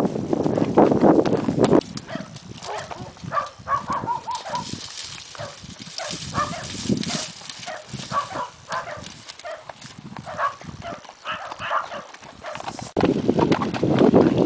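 A horse whinnying, a falling series of calls about four seconds in, over the hoofbeats of a ridden gaited horse. Wind buffets the microphone in the first two seconds and again near the end.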